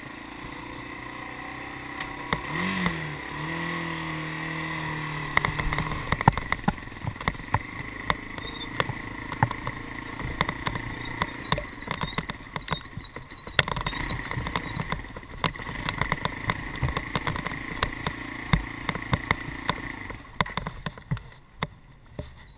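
Dirt bike engine running as it is ridden over rough off-road ground, revving up about two to three seconds in, with frequent knocks and rattles from the bike over the bumps. The engine note drops away about twenty seconds in.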